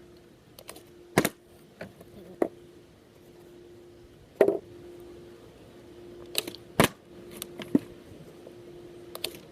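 Plastic water bottle being flipped and landing, a series of sharp knocks and clatters as it hits the surface and tips over, about eight in all. The loudest come a little after a second in, around the middle and near the end. A faint steady hum runs underneath.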